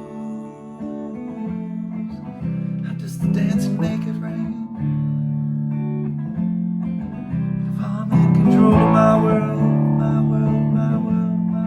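Mule Mavis guitar strumming sustained chords, with fresh strums every second or two; the loudest comes about eight seconds in.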